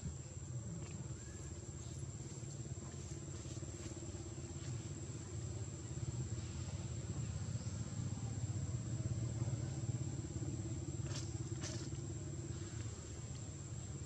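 Low motor-vehicle engine rumble that swells through the middle and eases off, over a steady high-pitched whine, with two sharp clicks near the end.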